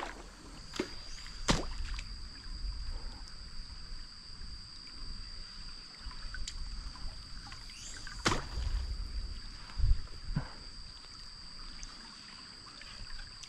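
Low rumble of river water and wind around a wading angler, with a steady high-pitched tone starting about half a second in and a few sharp clicks, the loudest about a second and a half in.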